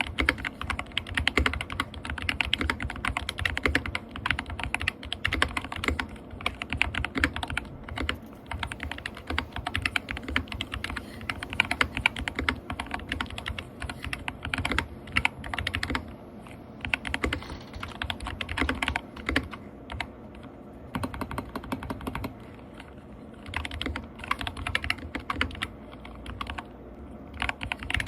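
Fast typing on a gaming keyboard: a dense run of sharp key clicks and bottom-outs, broken by a few short pauses in the second half.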